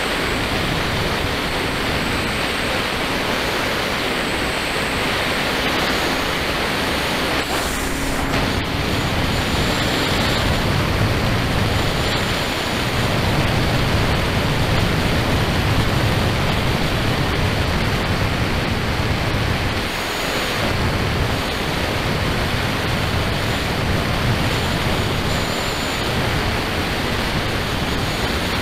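Steady rush of wind and road noise on a camera microphone riding on a Kawasaki KLR650 motorcycle at road speed, swelling a little in the middle.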